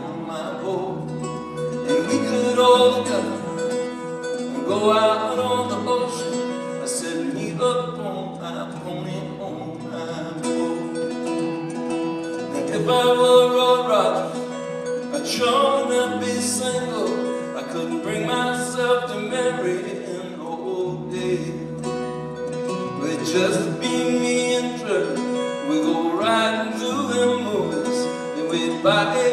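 Live acoustic guitar playing with a man singing, a solo country-folk performance heard from the audience through a phone microphone.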